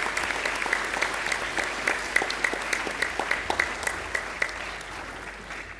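An audience applauding: many hands clapping together, thinning out and fading near the end.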